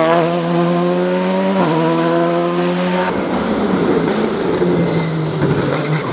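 Rally car engine at high revs pulling away, with one gear change about a second and a half in. After a sudden cut about three seconds in, another rally car's engine is heard approaching.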